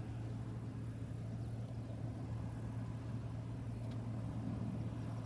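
Steady low drone of a farm machine's diesel engine running at constant speed, with no change through the whole stretch.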